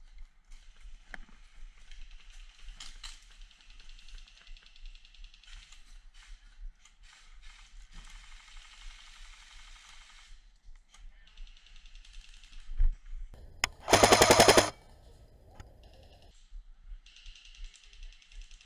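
G&G CM15 airsoft electric rifle firing one short full-auto burst of just under a second, about fourteen seconds in, with a thump just before it. Quieter rattling comes and goes earlier on and again near the end.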